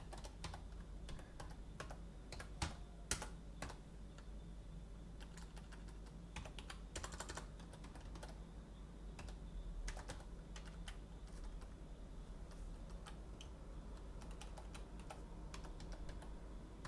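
Faint typing on a computer keyboard: irregular runs of keystrokes with short pauses between them, over a low steady hum.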